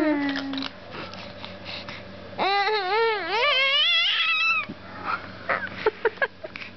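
A baby fussing in anger. A whiny cry falls away just at the start, and a long, wavering, drawn-out cry of about two seconds starts about two and a half seconds in. Near the end come a few short clicks as she mouths a plastic rattle toy.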